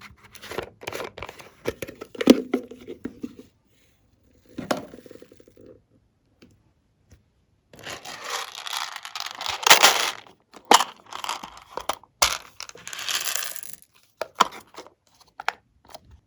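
Tearing and crinkling handling noise in several bursts, the longest about three seconds, followed by a few sharp clicks.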